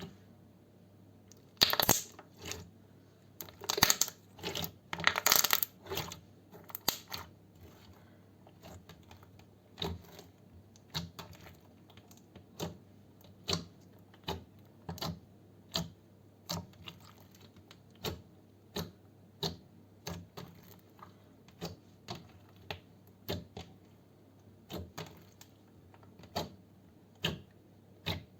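Slime being worked close to the microphone, giving a few loud crackling bursts in the first seconds and then a run of sharp single clicking pops, about one or two a second.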